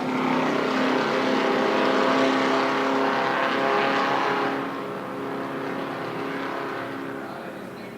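Vintage Indy race car engine running at speed, with a steady pitch. It is loudest in the first half, then fades away after about four and a half seconds.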